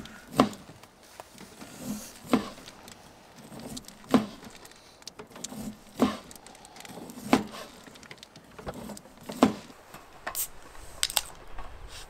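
A series of sharp knocks, about one every two seconds, with lighter clicks and rustling between them.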